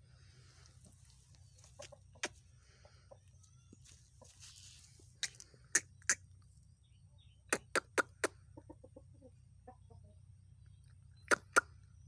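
Parrot-beak Aseel rooster clucking: short sharp clucks in small groups (one, then three in the middle, four a little later, two near the end), with a quick run of soft low clucks just after the group of four.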